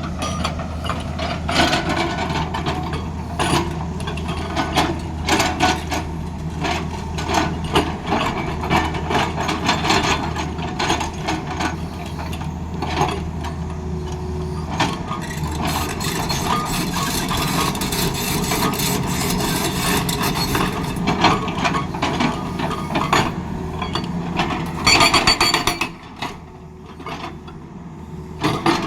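Tata Hitachi excavator's diesel engine running with irregular metallic clanks and knocks from the machine working. Near the end comes a short burst of rapid hammering.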